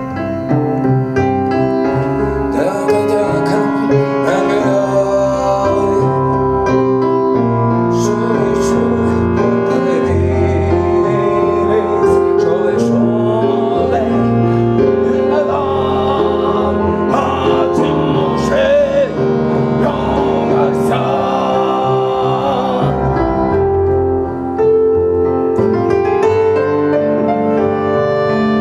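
Acoustic ensemble music: piano with a wavering melody line played or sung above it.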